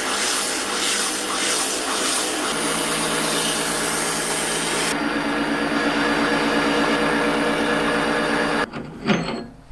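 Old electric potato peeler running, its motor giving a loud steady whir with several held tones that shift a couple of times. Near the end the sound briefly drops out, with a short rising tone, before it picks up again.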